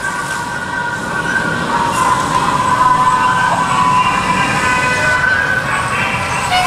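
Fire engine sirens sounding, several steady-pitched tones at once, growing louder as the pumpers approach.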